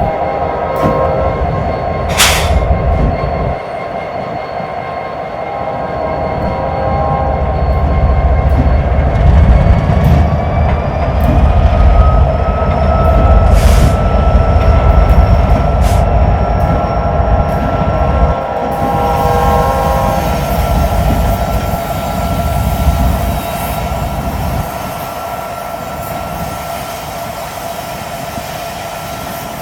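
Empty coke hopper cars of a freight train rolling past, their wheels squealing in steady high tones, with a few sharp clanks now and then. Gusts of high wind rumble on the microphone.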